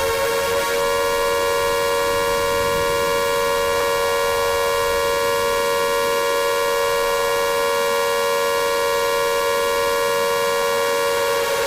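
Emergency-alert attention tone played in reverse: a steady, buzzy two-pitch tone with many overtones. It glides slightly into pitch in the first second, then holds flat.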